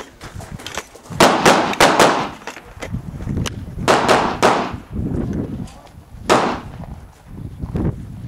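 A string of gunshots: a quick burst of about four shots just over a second in, three more in quick succession near the middle, then two single shots, each followed by a short echo.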